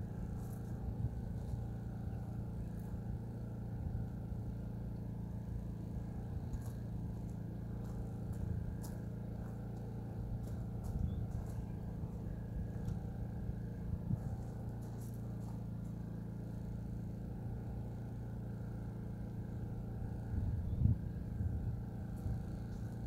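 An engine runs at a steady speed with an even low hum, with a few faint clicks and a couple of louder knocks near the end.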